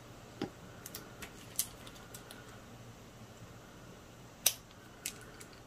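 Faint, scattered small clicks and taps as a nail-art brush and small gel polish pots are handled on a tabletop, with one sharper click about four and a half seconds in.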